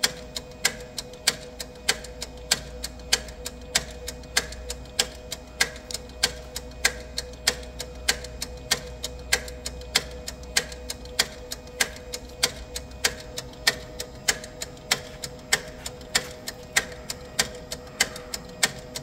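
Mimaki CJV150 wide-format inkjet printer running its initial ink fill after a printhead replacement: a steady, even ticking of about three mechanical clicks a second over a faint steady hum.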